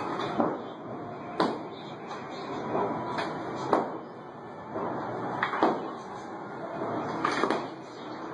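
Sledgehammer blows on a brick and mortar wall being demolished: a series of sharp knocks at irregular intervals, about eight in all, some in quick pairs.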